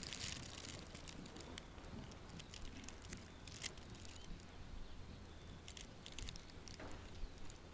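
Camera handling noise: faint, irregular clicks and taps over a low steady hum.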